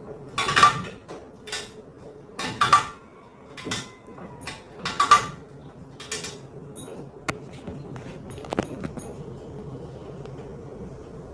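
A run of sharp clinks and knocks from hard objects being handled, about eight in all, the loudest three in the first five seconds, over a steady hum.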